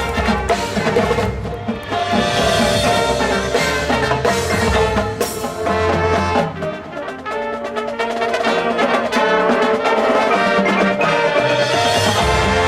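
High school marching band playing: brass chords over drums and percussion.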